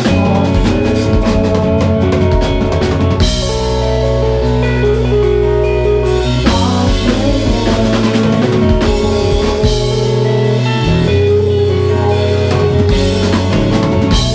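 Math-rock band playing live: interlocking electric guitar lines over bass and a drum kit, loud and continuous.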